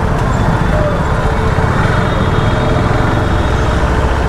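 KTM RC 390's single-cylinder engine running steadily at low speed in slow, crowded street traffic, heard from the rider's position with traffic noise around it.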